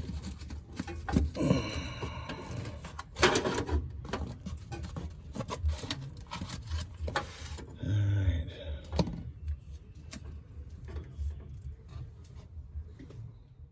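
Hand work on a pattern or panel: irregular taps and knocks with rubbing, and a few longer scraping sweeps, loudest about three seconds in and again about eight seconds in.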